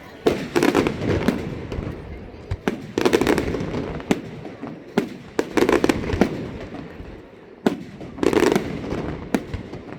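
Fireworks bursting overhead: a string of sharp bangs, each followed by a crackling burst, with heavier clusters of shells about three seconds in, around six seconds and near eight seconds.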